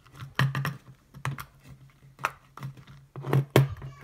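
Silicone bubbles of a pop-it fidget spinner toy being pressed, giving an irregular run of sharp pops and clicks, about ten in all.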